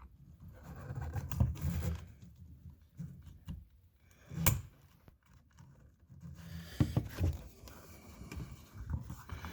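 Hard plastic parts of a car door's window switch assembly rubbing and clicking as the switch is fitted back into its trim piece, with one sharp snap about four and a half seconds in.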